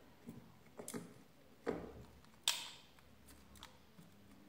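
A few sharp, small clicks and taps, the loudest about halfway through, from handling a small circuit board, wire and soldering iron while a speaker wire is soldered to its pins.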